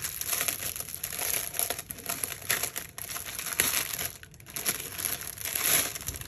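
Clear plastic wrapping crinkling in irregular flurries as it is pulled off a fabric clutch purse, loudest about halfway and again near the end.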